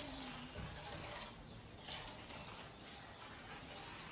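Wire whisk beating a thin liquid in a large steel pot, the wires scraping and rattling against the metal in repeated strokes.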